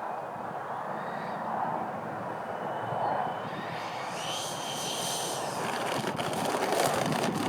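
Twin 80 mm electric ducted fans of a Freewing MiG-29 model jet whining in flight over a steady rush of air; about four seconds in the whine grows louder and higher. Wind buffets the microphone near the end.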